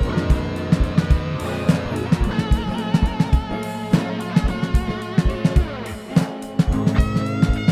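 Instrumental rock played by a band: an electric guitar lead line with bends and vibrato over bass guitar and a drum kit keeping a steady beat. A new guitar phrase starts near the end.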